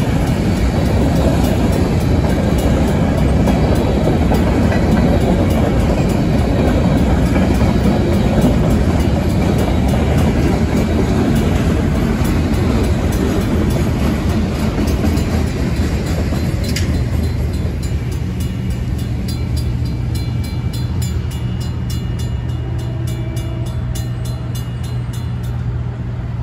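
Freight train cars rolling through a grade crossing: a steady rumble of steel wheels on the rails that eases as the last cars go by. A Safetran mechanical crossing bell strikes steadily, about twice a second, and is plainest in the second half, stopping just before the end as the train clears.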